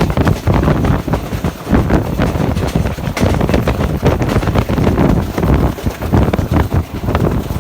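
Passenger train passing close by at speed, with a loud, uneven rumble and clatter of wheels on the track and wind buffeting the microphone.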